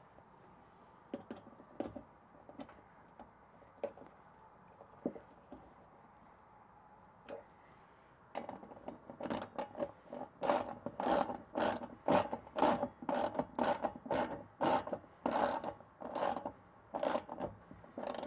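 Hand ratchet tightening the steel mounting bolts of a MOLLE panel bracket. A few scattered clicks and taps come first, then from about eight seconds in a steady run of ratcheting strokes, about two a second.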